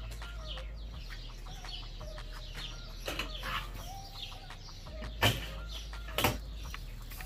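Domed metal lid of a Weber Smokey Mountain smoker being lifted off, with two sharp metal clanks about five and six seconds in, while birds call in the background.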